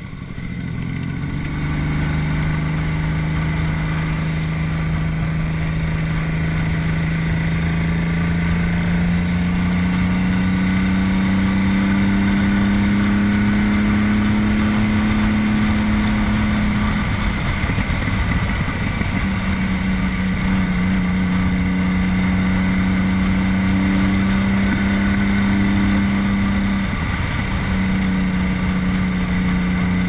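Yamaha XS850's three-cylinder engine running under way on the road, its note climbing slowly in pitch as the bike gathers speed. The note breaks briefly about halfway through and again near the end, then carries on steady.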